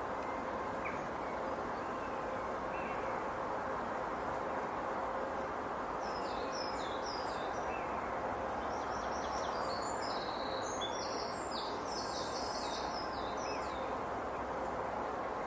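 Steady distant hum of agricultural machinery under a light breeze in the trees. A small songbird sings a rapid run of short, high twittering notes from about six seconds in until near the end, with a few faint chirps before it.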